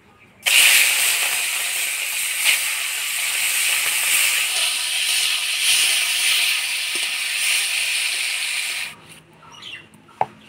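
Prawns sizzling as they hit hot oil in a metal kadai: a sudden loud, steady sizzle that starts about half a second in and holds level until it cuts off about a second and a half before the end. Then faint rubbing of a stone on a spice-grinding slab, with one sharp knock.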